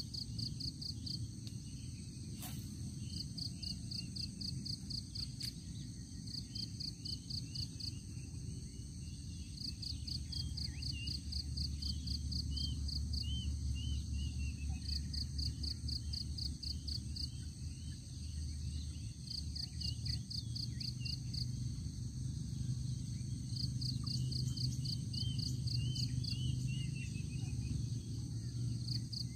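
Waterside ambience of insects chirping: high pulsing trills lasting a second or two, repeating every few seconds over a steady high insect drone, with short falling bird chirps now and then. A low steady rumble runs underneath, and a single sharp click comes a few seconds in.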